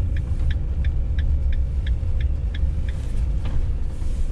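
Peugeot Boxer camper van's turn indicator ticking evenly, about three clicks a second, over the low rumble of the engine and road inside the cab. The ticking stops about three seconds in, as the van turns in to park.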